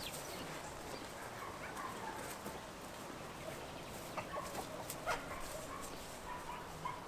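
Chickens clucking faintly in short, scattered calls, with a few light knocks about four and five seconds in.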